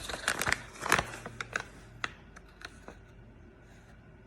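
Quick clicks and rustles of something being handled, thinning out after about two seconds into a few scattered clicks over a faint low hum.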